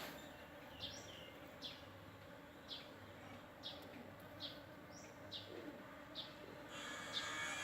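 Honeybees buzzing steadily at a flowering sandpaper vine, while a bird repeats a short, high, falling chirp about once a second. A louder hiss builds near the end.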